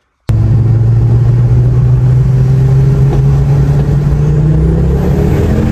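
Ford Focus ST225's turbocharged 2.5-litre five-cylinder engine pulling under acceleration, its note rising slowly. It starts suddenly just after the beginning.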